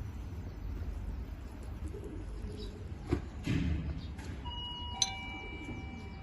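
A spoon clinks against a teacup while lemon juice is stirred in. One clink about three seconds in, and a sharper one about five seconds in rings on briefly, over a steady low outdoor rumble.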